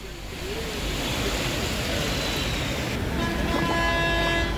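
Floodwater rushing along a waterlogged street, a steady noisy wash. About three seconds in, a held tone with several overtones sounds for over a second.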